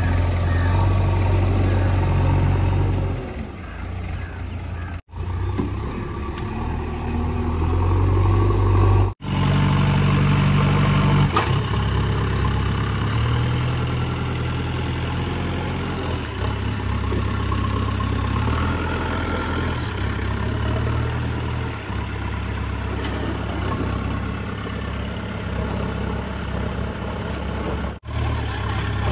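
JCB 3DX backhoe loader's diesel engine running and revving as the front bucket scoops and carries dung, a steady low drone that rises and falls with the work. The sound cuts out abruptly for an instant three times.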